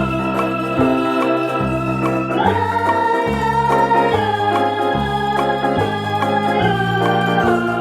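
Background instrumental music: long held chords over a bass line that changes note about every second.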